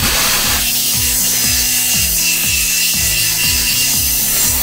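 Pneumatic cutting tool cutting into a steel car part: a steady harsh rasping hiss with a thin high whine, under background music.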